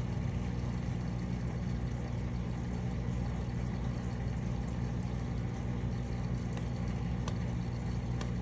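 Aquarium filters giving a steady low hum and water rush. A couple of faint clicks near the end come from clown loaches grinding their pharyngeal teeth as they feed.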